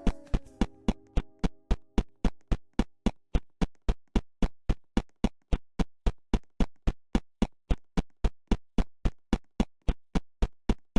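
Electronic music: a bare drum-machine beat of sharp, even hits, about four a second, with a synth chord dying away in the first second.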